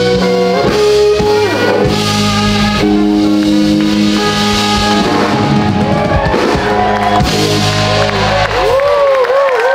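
Live blues band with electric guitar, bass and drum kit playing the end of a song. Near the end the band drops out, leaving one held note with a wide, even vibrato.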